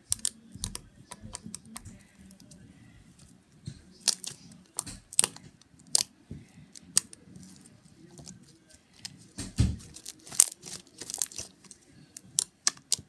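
Foamy slime being squeezed, poked and stretched by hand, giving irregular sticky clicks and pops that come thicker near the end. One duller thump about three-quarters of the way through.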